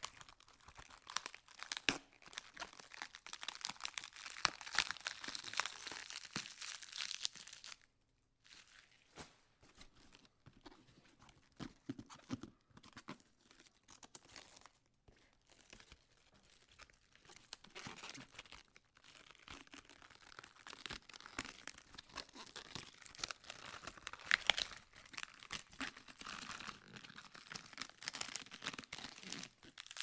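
Lettuce leaves being peeled off the head: a dense run of crisp tearing and crackling. It breaks off briefly about eight seconds in, goes sparser and quieter for a while, then grows busy again.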